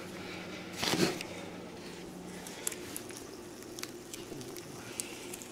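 A short crinkly rustle about a second in, from hands and mouth working at something held to the lips, then faint scattered clicks of handling.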